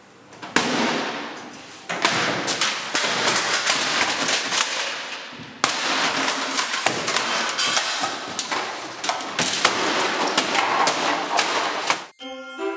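A desktop computer tower being smashed: slammed down and stamped on, in a long run of crashing and clattering hits of plastic and metal breaking apart, the first loud hit about half a second in.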